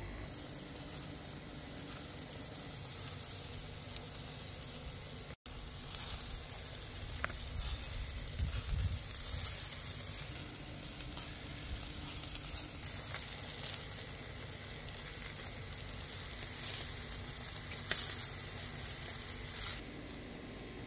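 Meat sizzling and spitting on the grate of a smoking barrel grill: a steady high hiss with frequent small crackles. The sound drops out for an instant about five seconds in, then comes back slightly louder.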